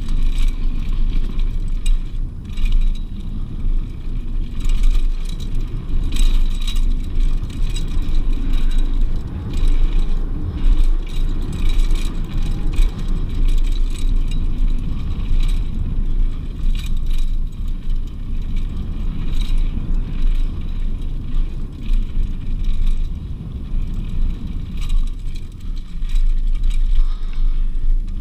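Mountain bike descending a dirt and rock trail at speed: continuous wind and tyre rumble on the camera microphone, with frequent rattles and clicks from the bike's chain and parts as it jolts over bumps.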